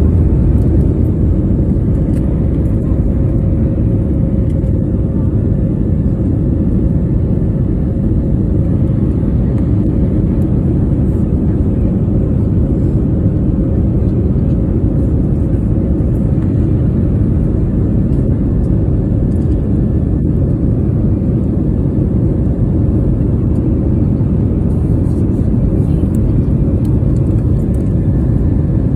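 Steady low rumble of an airliner's engines and rushing air heard inside the passenger cabin, with a faint steady hum in it.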